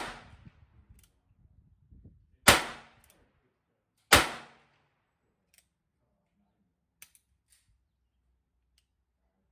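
Two gunshots about a second and a half apart, each sharp with a short echoing decay, following the tail of a shot at the very start. A few faint clicks come a few seconds later.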